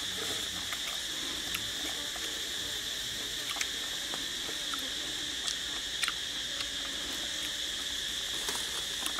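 Insects droning steadily in one high band, with scattered small clicks and smacks of a man chewing and gnawing on grilled pig intestine.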